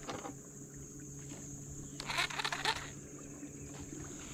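Rod and reel being cast and worked: a brief clatter of handling noise about two seconds in, over a steady low hum and a steady high insect drone.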